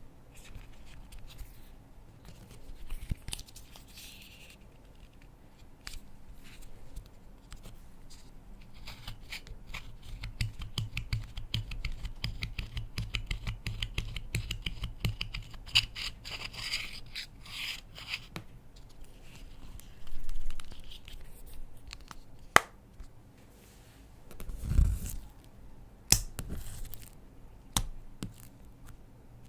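Slime being worked and mixed by hand with clay and glitter: a long stretch of dense sticky crackling and scraping in the middle, then a few separate sharp clicks and soft heavier squelches near the end.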